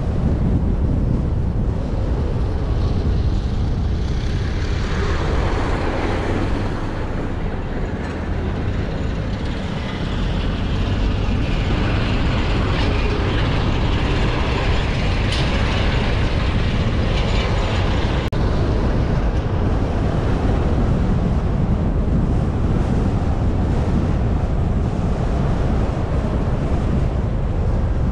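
A car being driven on the road: a steady low rumble of engine and road noise, with a hiss of tyre and wind noise that swells twice, about four seconds in and again for several seconds from about twelve seconds in.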